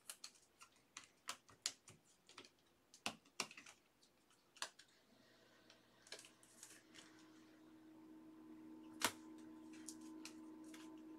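Faint clicks and taps of trading cards being handled and flipped through one after another. About five seconds in, a steady low hum of unknown source comes in and slowly grows a little louder, with one sharper click just after the nine-second mark.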